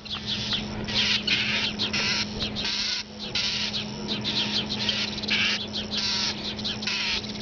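A bird's harsh scolding calls, many short rasping notes repeated in quick succession: alarm calls at a cat. A faint steady low hum runs underneath.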